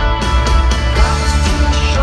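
Rock band playing live, loud and steady, in an instrumental stretch of the song without singing.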